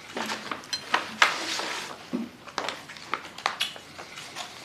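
Light clicks and knocks of small objects being handled, with a brief rustle about a second in.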